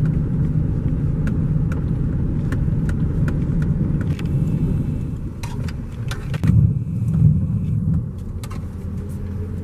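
Vehicle engine and road noise heard from inside the cab while driving, a steady low rumble with a couple of louder bumps past the middle.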